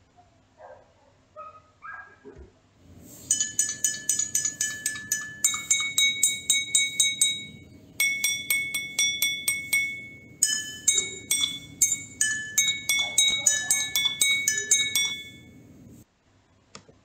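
Drinking glasses holding different amounts of water, struck quickly one after another with a wooden stick, each ringing with its own clear note, like a water-glass xylophone; the amount of water sets each glass's pitch. The tapping starts a few seconds in, runs at several strikes a second, and stops suddenly about a second before the end.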